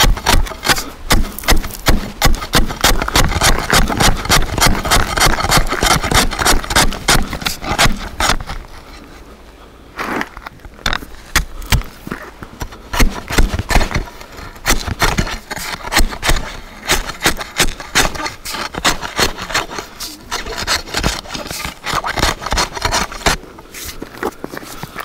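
Steel ice chisel chopping a fishing hole through ice: rapid repeated strikes crunching into ice and slush. The chopping pauses about eight seconds in, then resumes with more spaced-out strikes.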